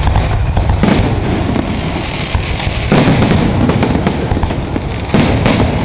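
Aerial fireworks bursting: four sudden bangs about one to two seconds apart, with a continuous din between them.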